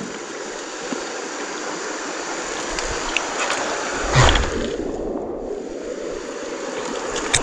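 River water rushing over stones, a steady hiss, with a thump from the camera being handled about four seconds in.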